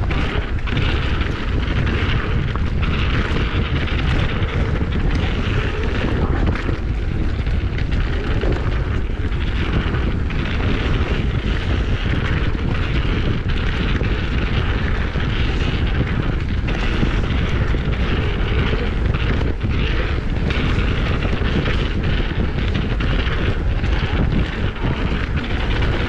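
Wind rushing over the camera microphone of a mountain bike ridden fast down a dirt trail, a steady rumble mixed with tyre noise and frequent short rattles and knocks from bumps.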